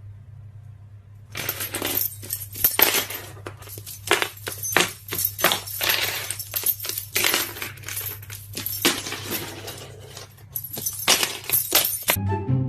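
Rapid, irregular clinking and clattering of small hard objects over a steady low hum, starting about a second in and stopping just before the end.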